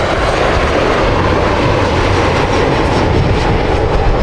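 Jet airliner's engines running loud and steady: a deep rumble with a broad rushing noise on top, with no change in pitch.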